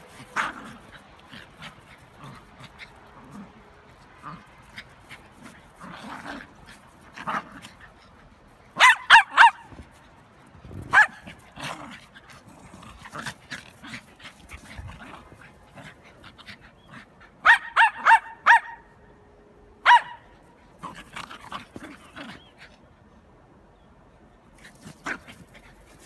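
Small dogs barking in short, high yips while play-fighting. The barks come in quick runs of three or four, loudest about nine and eighteen seconds in, with single barks scattered between.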